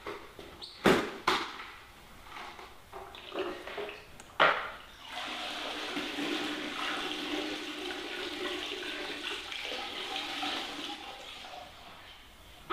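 Water streaming out of a squeezed paint strainer bag of wet denim pulp and splashing into the water in a five-gallon plastic bucket, pressed out so the pulp is drier. A few sharp knocks come first; the steady pouring starts about five seconds in and tails off near the end.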